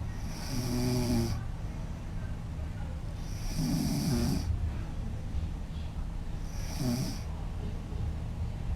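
A woman snoring, three snores about three seconds apart, each a rattling breath with a hiss.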